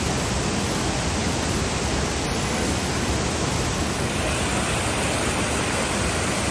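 Steady rushing roar of a waterfall, an even noise with no distinct events, a little brighter about four seconds in.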